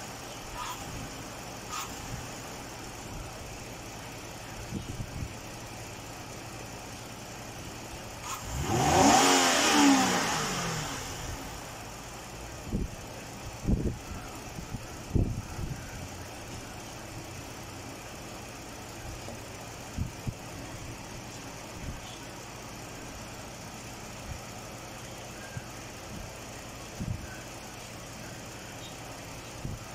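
Mazda CX-9 engine revving up once for about two seconds and falling back to a steady low running hum. A few short knocks follow a few seconds later.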